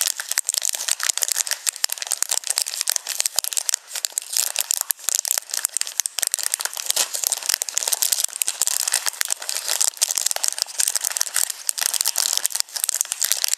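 Clear plastic packaging bag crinkling and crackling continuously as it is handled.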